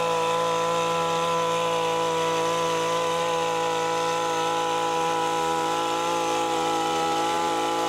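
Petrol hedge trimmer's small engine running at a steady high speed, its pitch holding level throughout.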